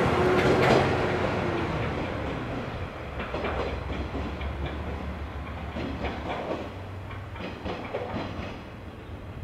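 JR West KiHa 126 series diesel railcar pulling away, its engine drone fading as it goes. Its wheels clack over the rail joints several times.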